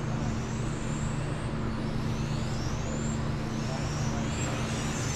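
Electric RC touring cars' motors whining on the track. The whine rises in pitch again and again as the cars accelerate, over a steady low hum.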